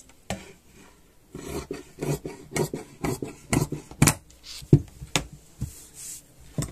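Tailor's shears cutting through pant fabric: a quick run of crisp snips, about three a second, through the middle, then a few scattered snips and the rustle of the cloth being handled.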